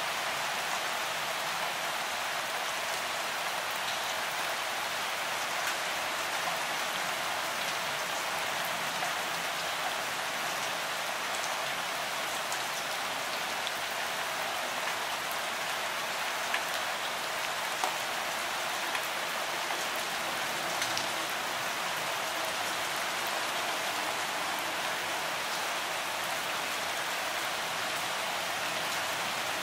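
Steady rain falling: an even hiss with scattered drop ticks, a few of them louder in the middle stretch.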